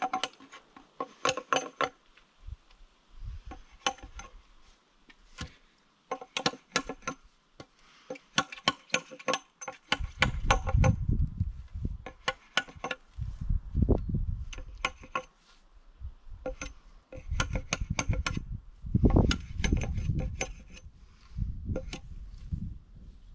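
Hammer driving nails into wooden posts and boards, in groups of quick blows that ring metallically. Heavy low rumbling and thuds run under the blows in the second half.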